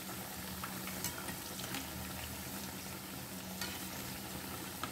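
Corn vadas deep-frying in hot oil, a steady sizzle and bubbling, with a few faint clicks.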